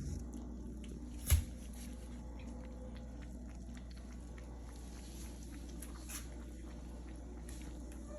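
Kittens eating, with many small wet chewing clicks, over a steady low hum; one sharp knock about a second in.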